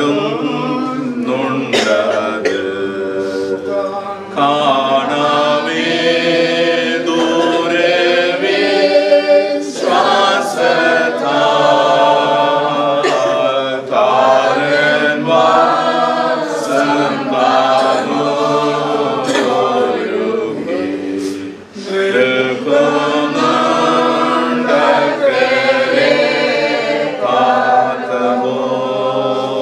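Unaccompanied group chanting of a Christian liturgical prayer, with many voices singing together and a short pause about two-thirds of the way through.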